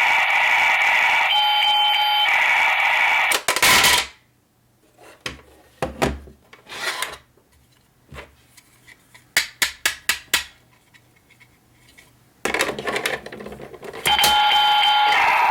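A battery-powered toy appliance runs with a steady whirring hiss and a short electronic tone, then stops. A quiet stretch of sharp plastic clicks follows, including a quick run of about six clicks. Then the whir starts again.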